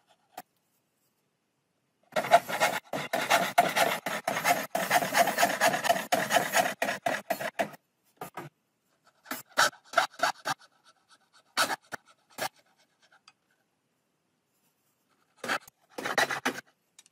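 Rapid scraping strokes of a hand tool on wood for about five and a half seconds, followed by scattered sharp knocks as the wooden boards are handled, and a last short burst of scraping near the end.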